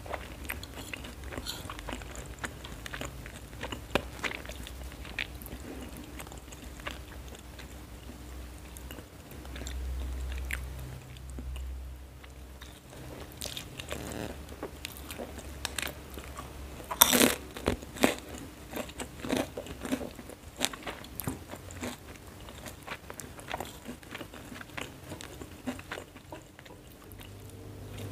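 A person chewing mouthfuls of mie goreng close to the microphone, with repeated crisp crunching bites. The loudest cluster of crunches comes a little past the middle.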